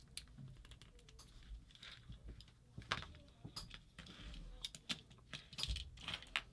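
Faint, irregular clicks and taps of small hard parts being handled: the Angel LCD paintball marker and its battery being fitted and handled.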